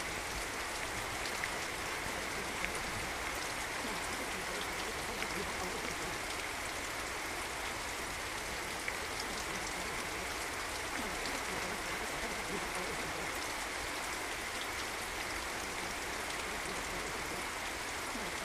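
Steady recorded rain: an even hiss with scattered small drop ticks throughout.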